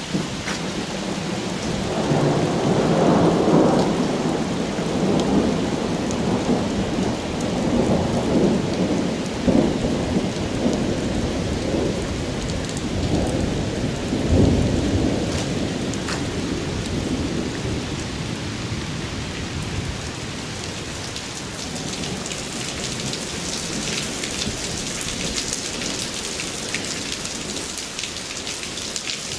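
Thunder rolling in several long swells over steady rain, dying away after about fifteen seconds. The rain hiss then grows louder, with many small drop ticks, near the end.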